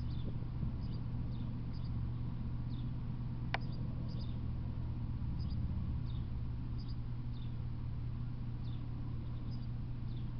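Small birds chirping faintly, short high notes often in pairs repeating every second or so, over a steady low hum. One sharp click about three and a half seconds in.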